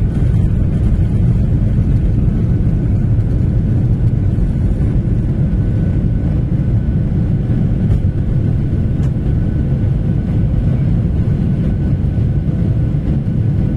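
Airliner cabin over the wing during the takeoff roll: the steady, loud, deep rumble of the jet engines at takeoff power. A faint high tone joins in about six seconds in.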